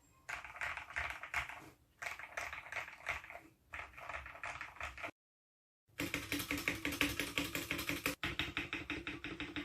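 Typing on a Tes 68 mechanical keyboard: a rapid, continuous run of key clacks. About five seconds in, the sound cuts out completely for under a second, then resumes with faster, fuller keystrokes.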